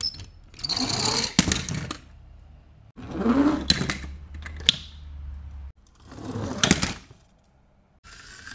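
Die-cast metal toy cars clattering and scraping against each other and the cardboard box as they are handled, in three bursts of a second or two each with sharp clicks.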